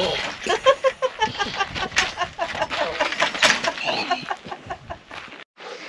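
A toddler babbling in many short, high-pitched syllables, with footsteps on dry dirt.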